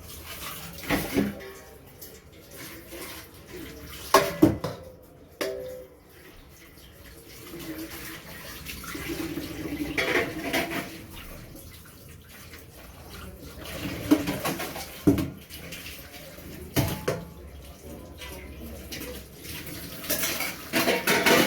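Dishes being washed at a sink under running tap water, with plates, pots and cutlery clattering against each other at irregular moments.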